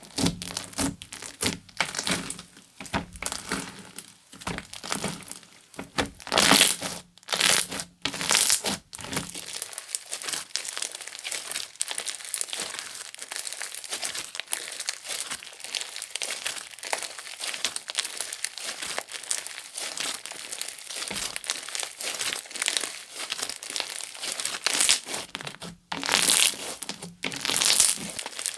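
Guacamole slime being squished and stretched by hand, making crinkly crackling sounds. The first third is irregular louder squishes, then a dense, steady fine crackle, with a few louder squishes again near the end.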